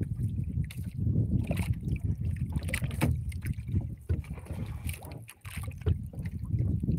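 Seawater sloshing and lapping close to the microphone, a continuous low churning with scattered small knocks and splashes.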